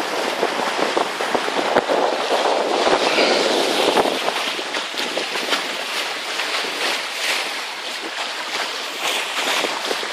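Steady rush of water and wind past a small gaff-rigged trailer sailer under sail, with no engine running.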